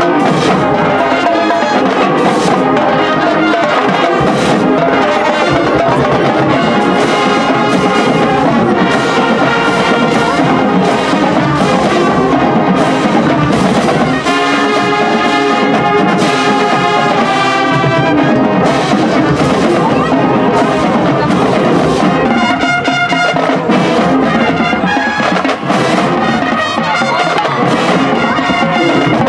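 Marching band playing at full volume: massed brass (trumpets and trombones) holding the melody and chords over the drumline's steady beat.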